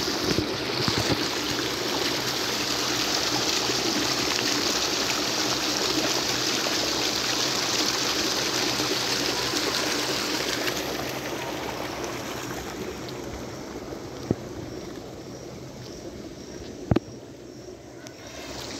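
Water rushing and churning out of a concrete sluice outlet, a steady loud rush that fades about eleven seconds in. Two short sharp knocks near the end.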